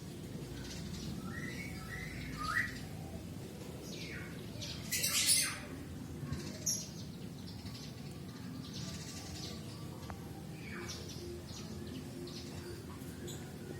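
Birds chirping and squawking in short, scattered calls over a steady low background, with a brief louder rustling noise about five seconds in.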